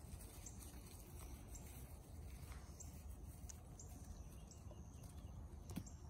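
Quiet outdoor ambience: a steady low rumble with a few faint ticks, the loudest just before the end.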